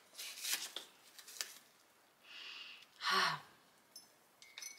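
Soft rustling and handling of a tea bag's paper wrapper, with a short sigh about three seconds in.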